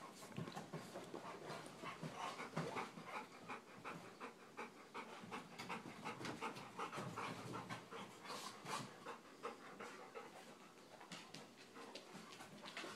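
Yellow Labrador retriever panting quickly and evenly, several breaths a second.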